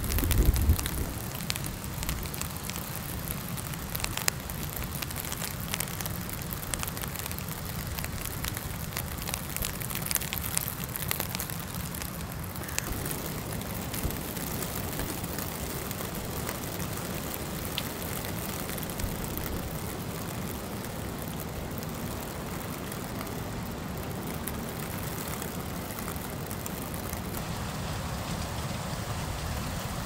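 Steady rain beating on a DIY kei-truck camper, a dense patter of drops over a constant hiss, with strong wind.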